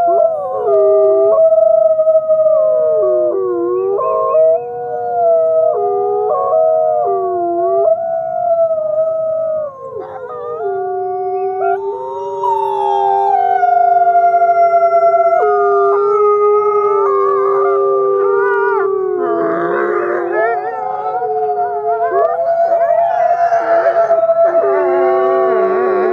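Gray wolf howling: long, drawn-out howls that slide up and down in pitch. Other howls at different pitches overlap them in a chorus, and a flurry of shorter, quicker notes breaks in about two-thirds of the way through and again near the end.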